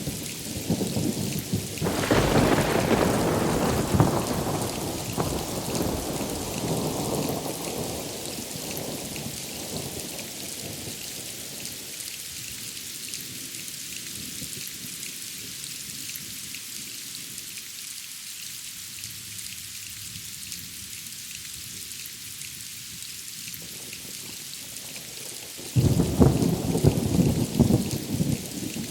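Steady rain with thunder: a roll breaks about two seconds in and rumbles away over several seconds, and another starts suddenly near the end.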